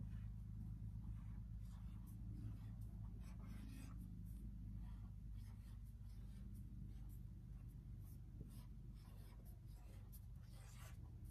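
Faint strokes of writing letters on a board, in short runs with pauses between, over a low steady hum.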